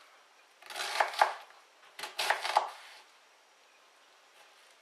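Kitchen knife slicing an onion on a chopping board: two short runs of quick cuts about a second apart, then the cutting stops.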